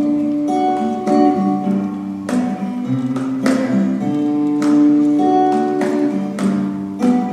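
Live ensemble music on strummed acoustic guitars, with chords struck every second or so and notes that ring on between strokes.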